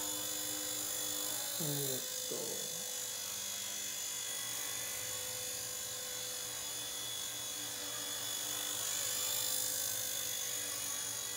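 Blade Nano S2 micro RC helicopter in flight: a steady whine and buzz from its small electric motors and spinning rotors, getting slightly louder around three quarters of the way through.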